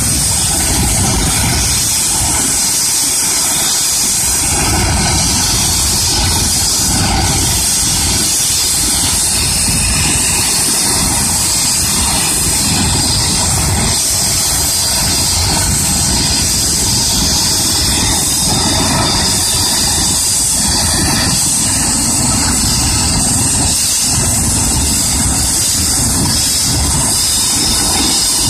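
Eurocopter EC135 air-ambulance helicopter's twin turbine engines running steadily on the ground, a loud, even turbine hiss and whine.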